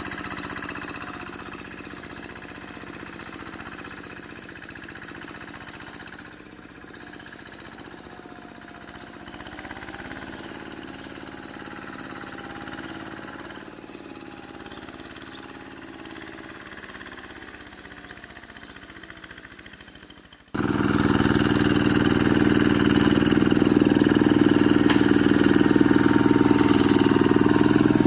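Quick G1000 hand tractor's diesel engine running steadily, heard from a distance at first. About twenty seconds in it suddenly becomes much louder and closer.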